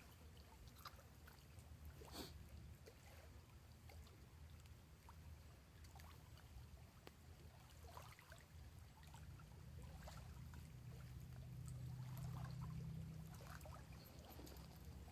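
Near silence: a faint low rumble with a few scattered small clicks and ticks, swelling slightly a little past the middle.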